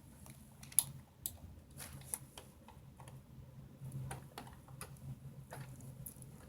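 Irregular light clicks and taps of small plastic accessory parts being handled, with a sharper click about a second in.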